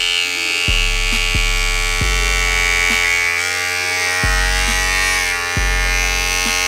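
Bevel Pro cordless clipper-trimmer running with its blade fitted, a loud, steady electric buzz as the cutting blade shuttles back and forth. Background music with deep bass notes plays under it.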